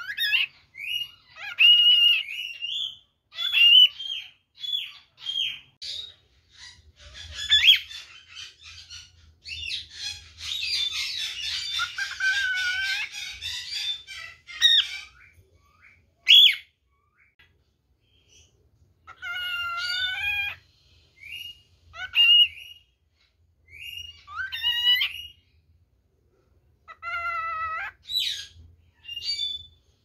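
Cockatiel calling: a string of short whistled notes, several rising in pitch, with gaps between them, and a few seconds of scratchy, rapid chatter about a third of the way through.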